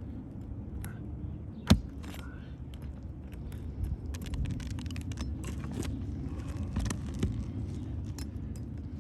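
Metal roofing tool working under asphalt shingles to pull nails: scattered metallic clinks and scrapes, with one sharp knock a little under two seconds in and busier clinking from about four seconds in, over a low steady rumble.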